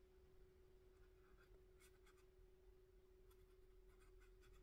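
Near silence. A paintbrush makes a few faint, short strokes as it dabs acrylic paint onto paper, over a faint steady hum.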